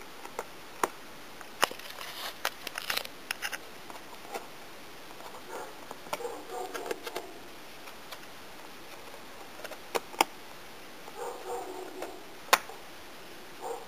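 Scattered sharp clicks and light handling noise from a laptop SO-DIMM memory module being unclipped from its slot, a quick cluster of clicks early on and two louder single clicks later.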